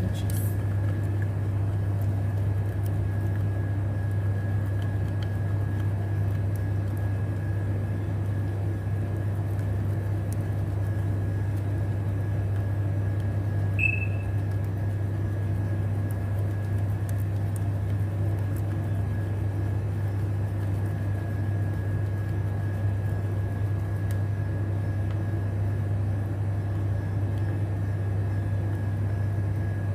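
A steady low machine hum with a faint constant high-pitched whine, and one short high chirp about fourteen seconds in.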